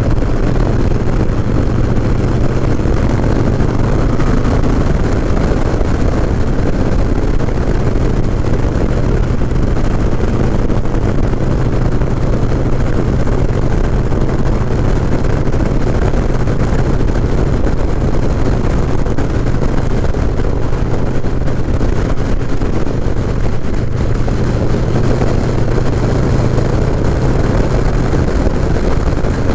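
Harley-Davidson Low Rider S's 114 cubic-inch V-twin engine running steadily at cruising speed, heard from the rider's seat with wind rushing over the microphone.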